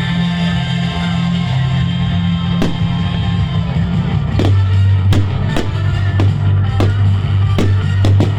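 Recorded music with a steady bass line playing loudly alongside firework bangs at a fireworks display: one sharp bang just before 3 seconds in, then a string of bangs roughly every half second from about halfway through.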